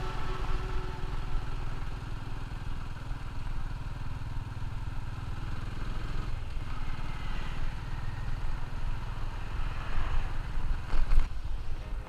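Motorcycle engine running steadily while riding, with wind noise over the microphone; the level swells a few times near the end.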